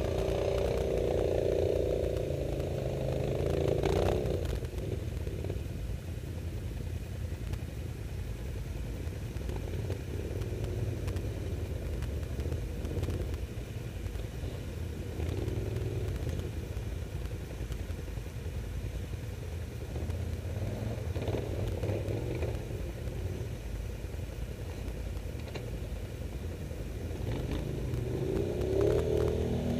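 Quad (ATV) engines running in snow, revving hard for the first few seconds and again near the end, with a steady low engine rumble in between.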